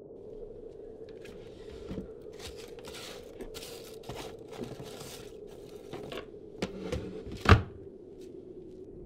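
Paper and plastic packets rustling and crinkling as a hand rummages through clutter on a bedside table, ending in one sharp knock of an object set down about seven and a half seconds in. A steady hum runs underneath.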